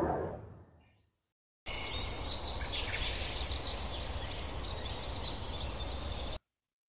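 Outdoor garden ambience: a steady noise bed with small birds chirping in short, quick high notes, busiest about a second after it begins and again later. It starts suddenly after a short fading sound and a moment of silence, and cuts off abruptly near the end.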